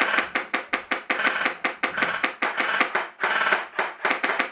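Airsoft electric gun firing on full auto in long bursts, a fast even rattle of about ten shots a second over the whine of its motor, with a short break about three seconds in.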